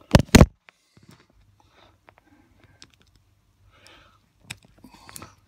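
Handling noise on the recording phone: two loud knocks in quick succession as it is moved and set down, then faint scattered clicks and rustling, with a few sharper clicks near the end.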